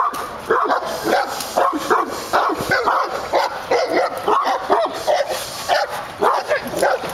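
Cane Corso barking rapidly and repeatedly, about two to three barks a second, while lunging on the leash: protection-training barking at an approaching decoy.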